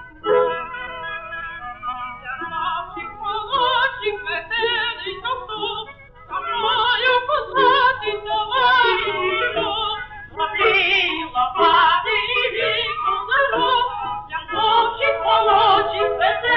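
Soundtrack music from an early sound cartoon: an instrumental accompaniment under a singing voice with a wavering vibrato, the whole sound lacking treble like an old film recording.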